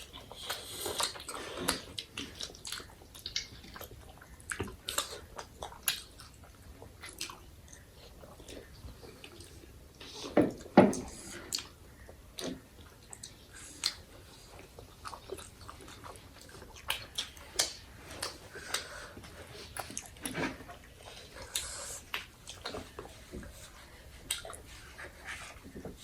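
People chewing and biting food, momo and noodles, in a close-up mukbang: irregular short mouth clicks and bites, with a louder one about ten seconds in.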